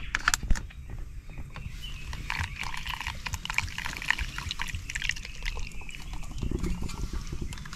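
Water being poured, a fast irregular trickling and splashing, with a few sharp clicks of handling at the start.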